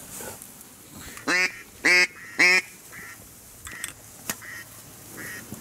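Three loud duck quacks, each short and falling in pitch, about half a second apart.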